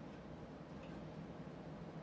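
Quiet room tone with a steady low hum and a very faint small click about a second in.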